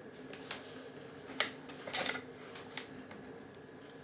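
Handful of light clicks and taps from metal multimeter probe tips touching and leaving an LED strip's contact pads, the sharpest about a third of the way in and a quick cluster around the middle. A faint steady hum runs underneath.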